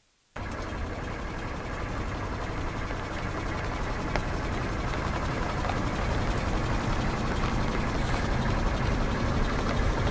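A car running and rolling slowly, a steady rumble of engine and tyres that starts abruptly and grows gradually louder, with a single sharp crack about four seconds in.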